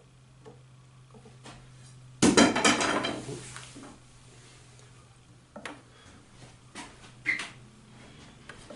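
Metal tools clattering: one loud rattling clatter about two seconds in that lasts about a second, then a few light clicks and knocks.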